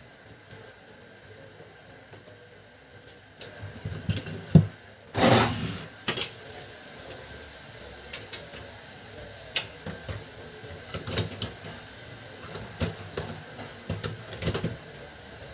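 Scattered clicks and knocks of a Canon LBP2900 laser printer's plastic parts being worked on, with one louder scraping rush about five seconds in.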